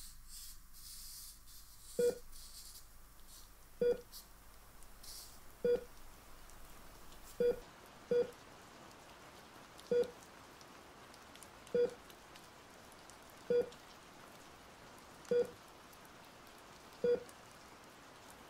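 Short electronic beep, a single mid-pitched tone repeating steadily about every two seconds, ten times, with one extra beep soon after the fourth. A faint hiss under the first few beeps fades out.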